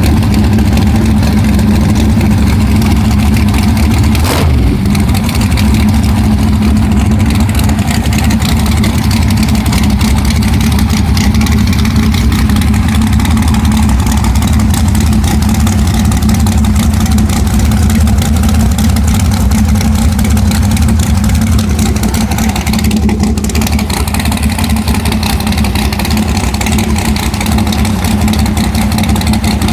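Pro Nitrous Willys drag car's nitrous big-block V8 idling loud and steady, with a sharp click about four seconds in.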